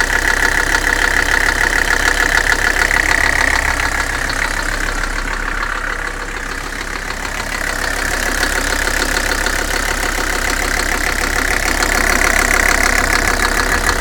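Mercedes 300SD's five-cylinder OM617 turbo diesel running with a loud, rapid knock that the owner takes for worn bottom-end bearings. The level dips a little partway through, then comes back up.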